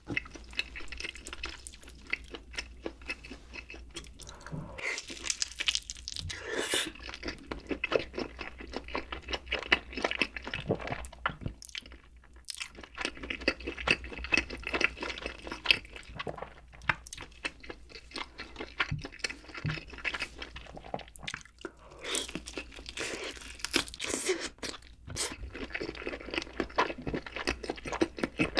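Close-miked crunchy chewing and biting of food, dense crackling bites with brief pauses between mouthfuls.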